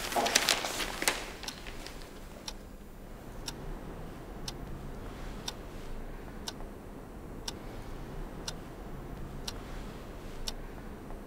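Clock ticking steadily, one sharp tick about every second. A brief rustle of newspaper pages comes just before the ticking starts.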